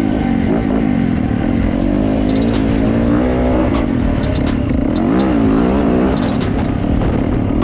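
Yamaha YZ450F single-cylinder four-stroke dirt bike engine running under load on a trail, its pitch rising and falling again and again as the throttle is worked, with scattered sharp ticks over it.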